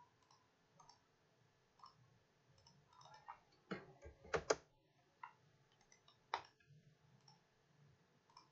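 Faint, scattered computer mouse clicks, with a louder flurry about four seconds in and a single sharp click a little after six seconds.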